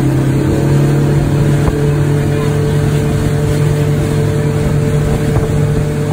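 Motorboat engine running steadily at speed while towing a tube, its note stepping up slightly about a second and a half in, over the rush of the wake and wind.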